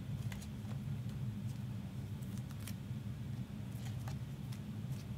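Steady low background hum, with a few faint, light clicks and ticks scattered through it.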